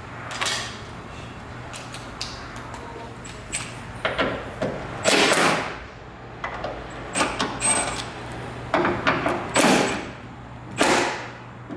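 Irregular knocks and clanks of parts being handled and struck in a body shop, likely during teardown of a crash-damaged car front end. There are about seven loud hits, some with a brief metallic ring, over a steady low hum.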